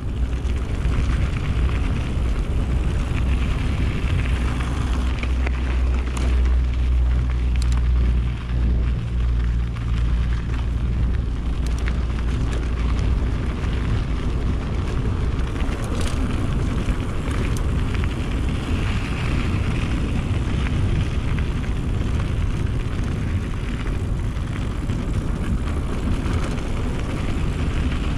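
Wind buffeting the microphone of a camera on a moving mountain bike, a heavy rumble that is strongest over the first ten seconds or so, with steady riding noise and a few sharp clicks.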